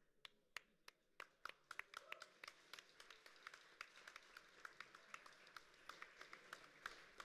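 Faint audience applause: a few scattered claps at first, building into steady clapping from many hands about a second and a half in.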